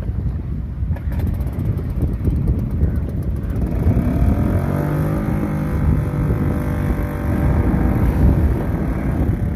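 Wind rumbling on the microphone over a small fishing boat's engine; in the middle the engine's pitch rises and falls.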